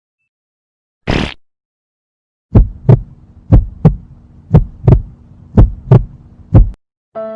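Heartbeat sound effect: four and a half lub-dub double thumps about a second apart over a low steady hum. It comes after a brief burst of noise about a second in.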